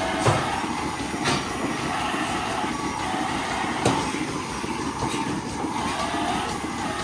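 Rotary milking parlour running: the turning platform and milking equipment make a steady mechanical rumble, with a handheld rotating teat-cleaning brush working. A few sharp metallic clanks come through, about four in all.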